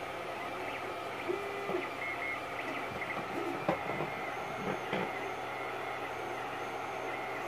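Creality Ender 3 3D printer running a print: its stepper motors whine in short steady tones that jump in pitch with each move, over a steady hum. A few knocks come midway.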